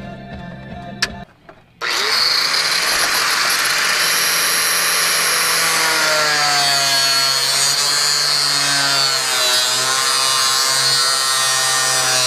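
Handheld angle grinder running loud and steady from about two seconds in, grinding into a plastic dashboard bezel. Its pitch wavers as the disc bites into the plastic.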